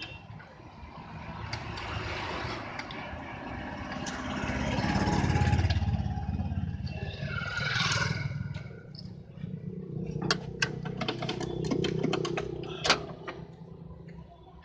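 A motor vehicle engine, its sound swelling to a peak about five seconds in and then fading. A quick run of sharp clicks follows near the end.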